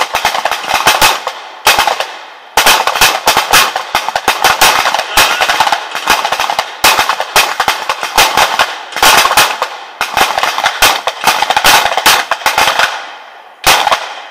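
A firing line of pistols shooting at once, among them a 9mm SIG P210: dozens of sharp, irregular, often overlapping shots, each trailing off in a long echo. The first shot comes right at the start.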